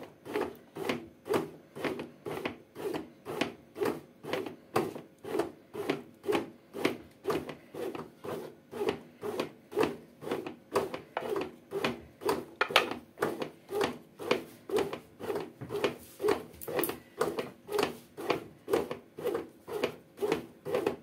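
Redmond RBM-M1910 bread maker kneading a rye bread dough: the paddle works the dough in a steady pulsing rhythm, about two and a half strokes a second.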